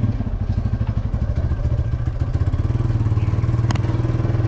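Motorbike engine running steadily as the bike rides along a dirt lane, heard from on the bike, with one sharp knock about three-quarters of the way through.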